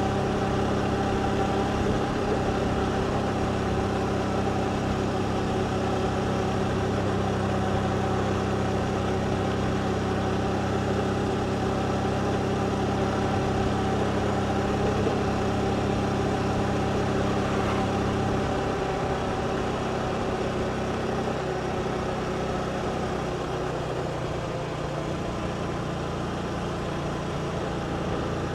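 Motorbike engine running at a steady pitch while riding, over a haze of road and wind noise; about two-thirds of the way in, its pitch drops in steps as the engine slows.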